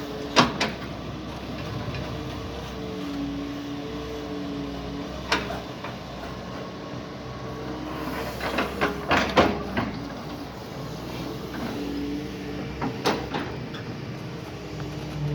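Doosan DX140 excavator's diesel engine running steadily, its hydraulic whine shifting in pitch as the machine works, with sharp knocks and clanks: one shortly after the start, one about five seconds in, a cluster around nine seconds and a few near thirteen seconds.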